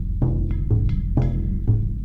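Meditation music: a steady pulse of low, drum-like struck notes, about two a second, each ringing on briefly, with faint chiming overtones above.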